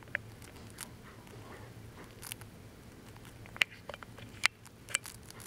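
Hamster eating: small sharp crunching clicks of its teeth on food at irregular intervals, about seven in a few seconds, over a faint steady low hum.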